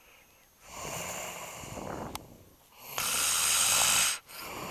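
A man snoring loudly in his sleep: a long snore starting about half a second in, then a louder one around three seconds that cuts off sharply, and another starting near the end.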